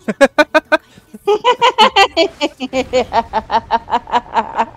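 A man and a woman laughing. A short burst of quick laughs comes first, then from about a second in a long, rhythmic run of ha-ha laughter, with music from the episode faint underneath.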